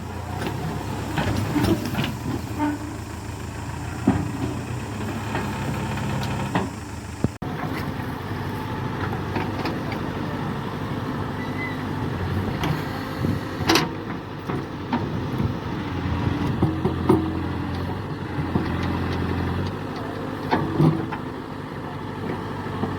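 Diesel engine of a JCB 3DX backhoe loader running steadily while digging and loading mud, with scattered sharp knocks and clanks from the machine working. The sound breaks off abruptly about seven seconds in and resumes at once.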